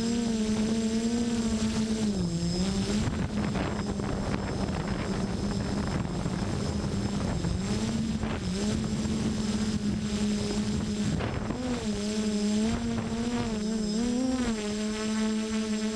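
Electric motors and 10x5 propellers of an FPV multirotor (Tiger MN2216 motors) whining in flight, over a steady rush of wind. The pitch holds mostly steady and dips and rises briefly now and then as the throttle changes, most often near the end.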